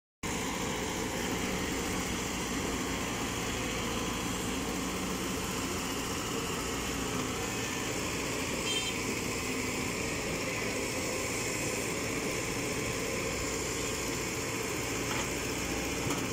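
Caterpillar E120B hydraulic excavator's diesel engine running steadily while the machine works its boom and arm.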